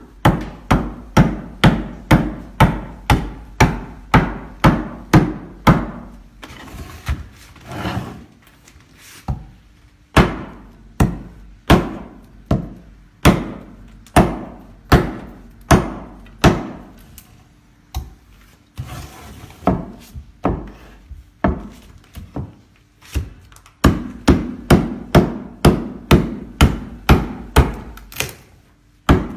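A small homemade toki kaupukapu (Māori adze) chopping into a flat wooden carving panel. Sharp wooden strikes come about two a second in runs, thin out twice, and quicken near the end.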